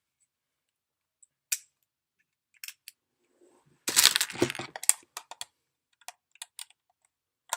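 Scattered sharp clicks and knocks of a screwdriver and the hard plastic multimeter case being handled, with a denser clatter about four seconds in and quicker clicks toward the end.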